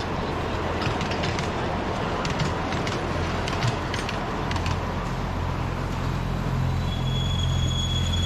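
Miniature-railway carriages rolling past on 7¼-inch gauge track, the wheels rumbling and clicking over the rail joints. Toward the end a lower drone and a steady high wheel squeal build as the next train approaches.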